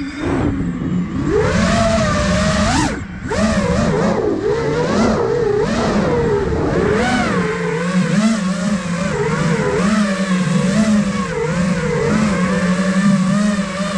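Five-inch FPV quadcopter's brushless motors and propellers whining, the pitch rising and falling constantly with the throttle. The sound dips briefly about three seconds in as the throttle is cut, then climbs again.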